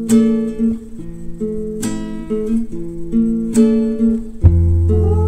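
Background music: slow strummed guitar chords, with a deep bass note coming in about four and a half seconds in.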